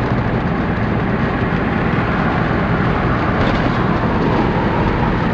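Steady engine and road noise heard from inside the cab of a moving vehicle, with no distinct events.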